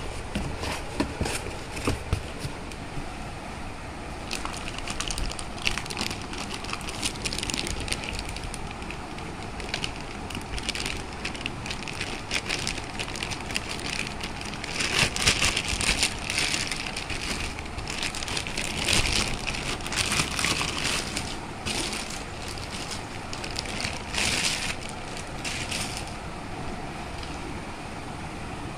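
Plastic packaging crinkling and rustling in irregular bursts, with cardboard scraping, as a mixer grinder is handled in its box and unwrapped.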